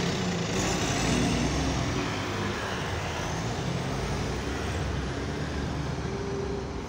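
Double-decker bus engine pulling away and fading as the bus drives off, a low rumble with the slight blow of a burst exhaust, and a faint rising whine partway through.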